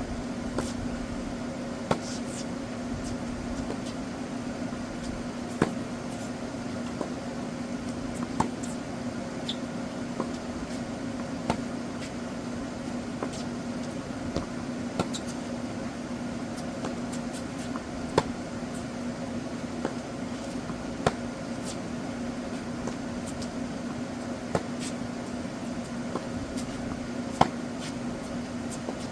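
A steady machine hum at one low pitch, with sharp single knocks every two to three seconds.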